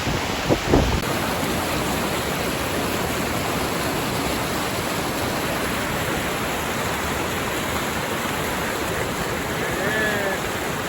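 River rapids rushing steadily, an even hiss of fast water. A couple of brief low bumps come about half a second in.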